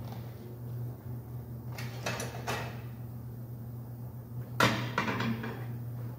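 Tire changing machine's arms and bars being set against a wide 32-inch tire: a few knocks about two seconds in and a sharp metal clank a little past halfway, over a steady low hum.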